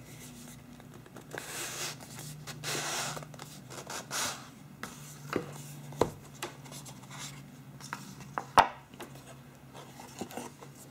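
Cardboard phone box being handled and opened: the outer sleeve sliding off with a few swells of rubbing and scraping, then several sharp taps as the box and lid are handled, the loudest about two-thirds through.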